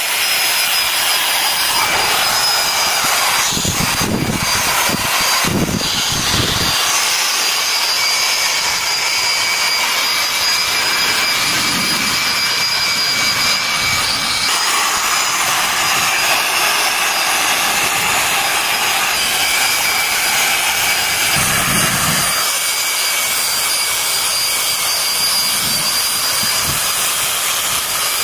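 Heavy electric drill running steadily with a polishing pad buffing the painted steel of a truck cab: a rushing hiss with a steady high motor whine, its pitch shifting a little about halfway through.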